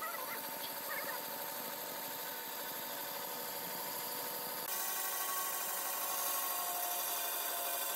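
Band saw running steadily, its blade cutting lengthwise through a log. About two-thirds of the way through the sound jumps abruptly to a louder, hissier pitch.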